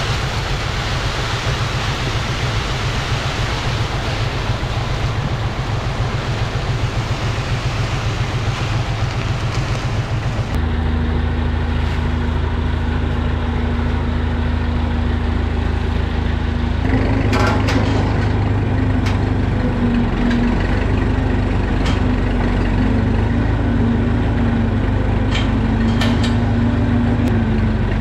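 Tractor engine running steadily while potassium chloride granules pour from a big bag into a spreader hopper. After about ten seconds the engine note changes to a different steady hum, and it shifts again around seventeen seconds, with a few sharp clicks.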